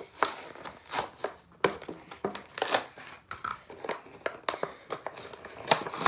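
Toy packaging being unwrapped by hand: irregular crinkling, rustling and tearing, with several sharp crackles.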